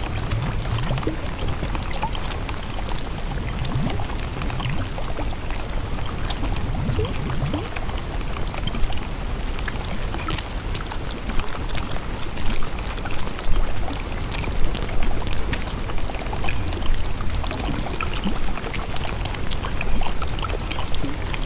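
Steady sound of running, pouring water, with small splashy spikes that become more frequent about halfway through.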